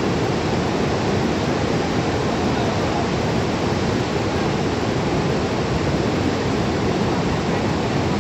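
Fast-flowing floodwater rushing steadily, a loud, even noise that does not let up.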